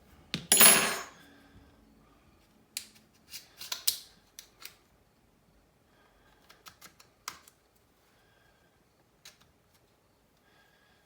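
Small tools and plastic phone parts being handled on a desk: a brief, loud scraping rustle about half a second in, then scattered light clicks and taps.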